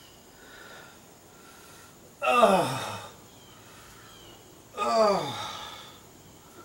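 A man letting out two long groans, about two seconds in and again near five seconds, each starting suddenly and sliding down in pitch as it fades.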